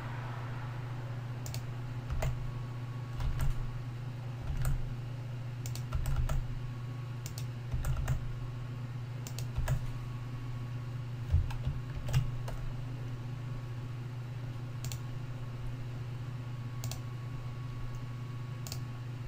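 Computer keyboard keys clicking at irregular intervals, a dozen or so separate presses, over a steady low hum.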